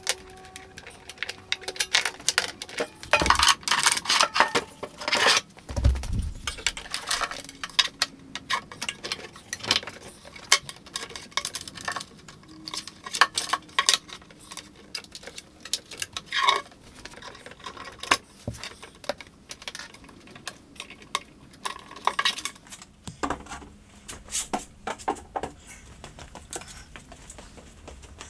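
Irregular clicks, taps and knocks of electrical cords, plastic plugs and a small hand tool being handled on a wooden workbench and plugged into a cabinet, with a couple of heavier thumps a few seconds in.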